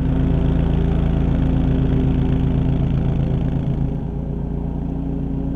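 Toro zero-turn riding mower's engine running steadily under load as the mower passes close by. It gets a little quieter about four seconds in as the mower moves off.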